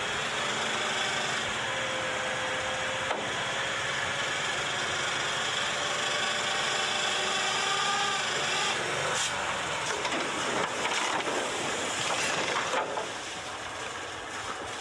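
Old dump truck's engine running while its hydraulic hoist raises the loaded bed, a rough steady noise with a faint whine that climbs in pitch about halfway through. A few sharp clicks follow, and the sound eases off near the end as the truck tips back onto its tail.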